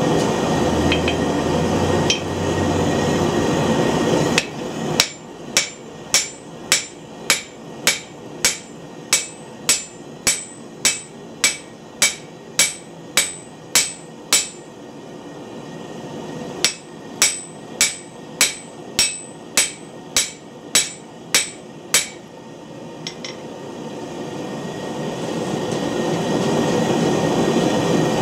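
Hand hammer forging a glowing bar of tough high-carbon steel on an anvil: two runs of ringing blows, about two a second, with a short pause between. A steady rushing noise comes before the blows and returns near the end.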